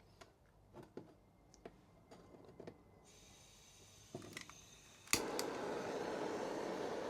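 A few light clicks and taps of handling, then about five seconds in a sharp click as a blowtorch is lit, followed by its flame burning with a steady hiss.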